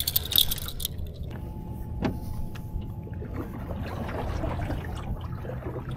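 Clicks from a metal catfish stringer as it is handled, then a single knock about two seconds in and the splashy noise of a paddle being worked beside an aluminium jon boat, over a steady low wind rumble.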